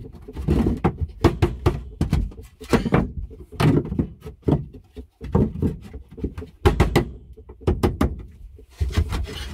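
Wooden boards knocking and thudding against the wall framing as they are fitted by hand: a run of irregular thunks and knocks, some in quick clusters, in a small wooden room.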